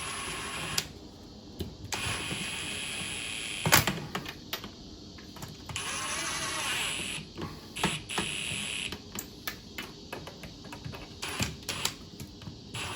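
Ratchet wrench clicking in quick runs as the stern drive's mounting nuts are run down onto their studs, with a few stretches of steady buzzing lasting a second or two.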